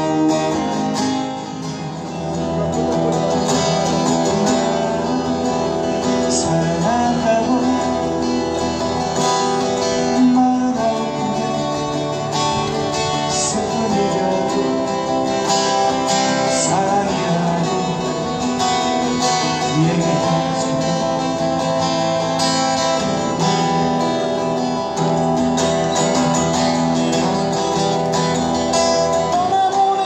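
Live acoustic duo: two acoustic guitars strummed and picked together through a small PA, with a man singing over them.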